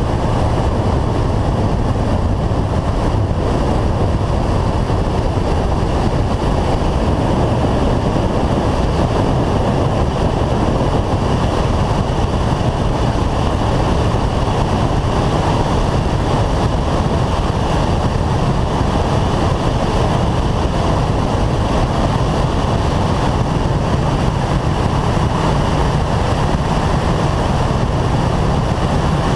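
Steady rush of wind over a roof-mounted GoPro on a Renault Clio 182 at track speed, with the car's engine and tyre-and-road noise underneath.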